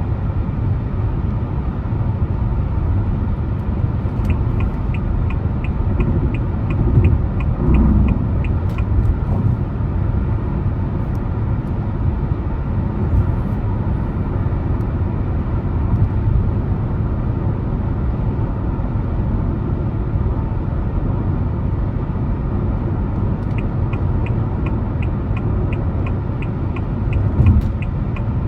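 Steady low rumble of a car driving, tyres and engine heard continuously. Twice a turn-signal indicator ticks evenly, about three times a second, for several seconds.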